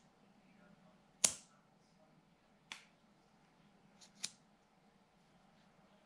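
A titanium tactical pen's bolt mechanism being worked by hand, giving four sharp metallic clicks. The loudest comes about a second in, another near three seconds, and two close together about four seconds in.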